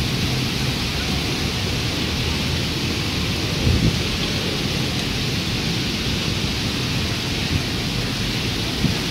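Heavy rain pouring steadily in a storm, a constant hiss, with a brief low bump about three and a half seconds in.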